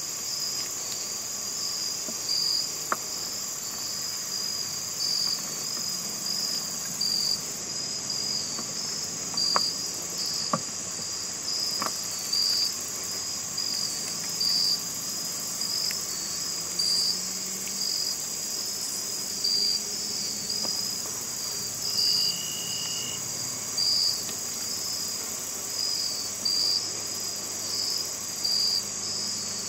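Chorus of crickets and other insects: a steady high trill with a louder chirp repeating roughly once a second. A few faint clicks sound within it.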